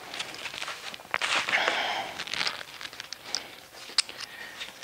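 Footsteps and rustling handling noise of someone picking up and sorting luggage straps, with one sharp click about four seconds in.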